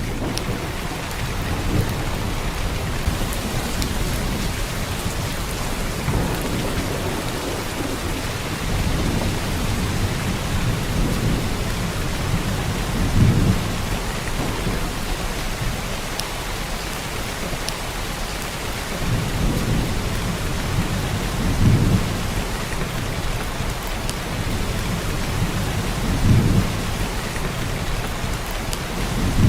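Heavy downpour of rain, a steady hiss, with low rumbles of thunder rolling underneath that swell several times, most strongly about halfway through and twice near the end.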